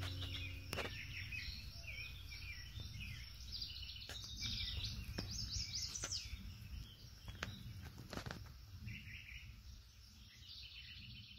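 Several songbirds chirping and singing in quick, overlapping phrases over a faint low rumble, with a few sharp clicks; the sound slowly fades toward the end.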